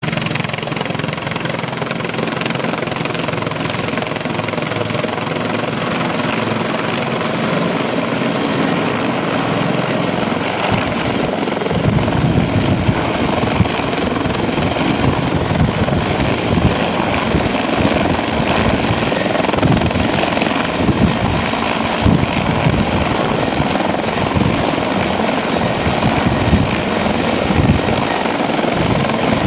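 Bell 412 helicopter's rotor and turbines running as it passes overhead and then hovers low, with a steady high whine over the rotor noise. From about twelve seconds in, the rotor downwash buffets the microphone in irregular gusts.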